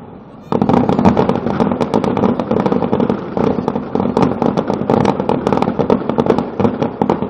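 Aerial fireworks display: after a brief lull, a dense barrage of rapid bangs and crackles starts about half a second in and keeps going without a break.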